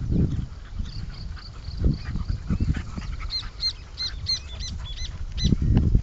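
A bird's repeated high chirps, about three a second, through the second half, over irregular low rumbling bursts that are loudest near the start and near the end.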